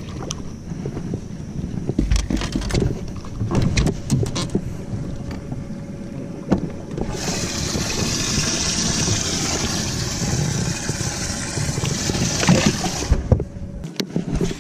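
Clunks and rattles of handling on the deck of a bass boat, then a steady rush of running water from the boat's livewell for about six seconds, starting and stopping suddenly.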